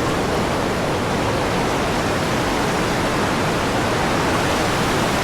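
River rapids rushing, a steady, even wash of white water.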